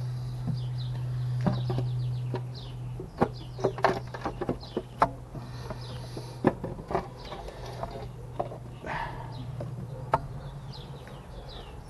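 Sharp clicks and knocks as the valve cover of a BMW E46 325i is worked loose from the cylinder head and lifted off, most of them a few seconds in and one more near the end. Birds chirp throughout.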